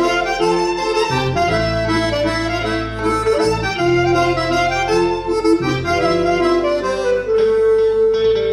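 Instrumental dance music: a melody of held notes over sustained bass notes that change every second or so.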